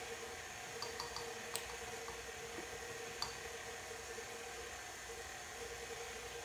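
A steady mechanical hum with a few light clicks and taps from a measuring spoon and small bottle being handled. There is a quick run of faint clicks about a second in, a sharper click about one and a half seconds in, and another a little after three seconds.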